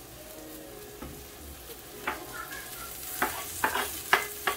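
Chopped herbs, celery and shallot scraped off a wooden cutting board with a wooden spatula into a hot frying pan of masala, beginning to sizzle. From about two seconds in, a quick run of sharp knocks as the board and spatula tap against the pan.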